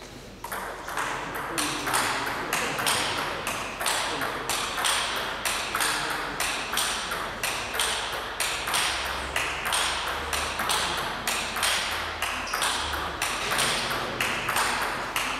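Table tennis ball hit back and forth in a continuous rally: sharp clicks of the ball off the rubber-faced rackets and bounces on the table, about two to three a second without a break.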